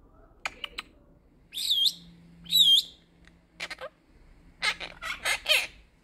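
Quaker parrot (monk parakeet) calling: a few quick chirps, then two whistled notes that dip and rise in pitch, a short note, and a run of rapid harsh chattering calls near the end.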